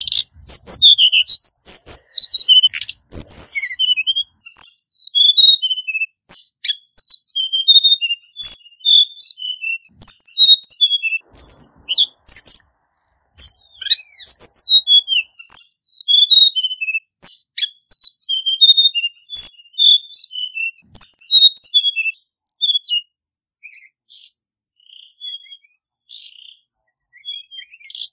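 Male hill blue flycatcher singing: repeated phrases of quick, high whistled notes that jump up and down in pitch, each phrase a second or two long with short pauses between. The song is fainter in the last few seconds.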